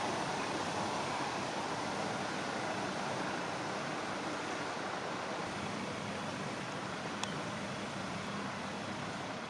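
Steady rush of flowing river water, an even hiss with a faint low hum under it and one small click about seven seconds in.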